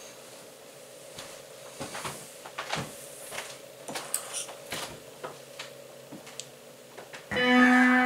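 Quiet room with a faint steady hum and scattered small knocks and clicks, then keyboard or piano music starts abruptly about seven seconds in, playing sustained chords.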